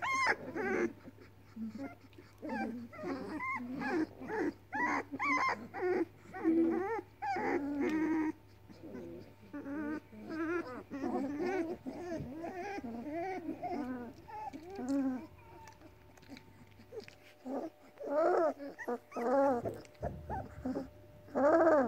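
Weimaraner puppies whimpering and moaning in a string of short, pitched cries, with a brief lull about three-quarters through and louder cries near the end. The puppies are hungry.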